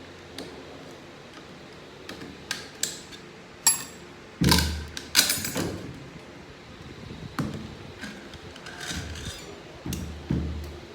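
Metal parts of a 6HP21 automatic transmission being handled during teardown: irregular clinks and knocks, one with a short metallic ring, and a couple of heavier clunks followed by rattling about halfway through.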